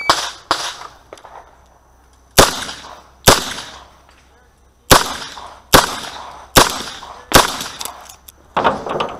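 Six shots from a Chiappa Rhino .38 Special revolver, fired about one a second, each with a short ringing echo. After the sixth shot come a few light metallic clicks and clatter as the cylinder is swung open to reload.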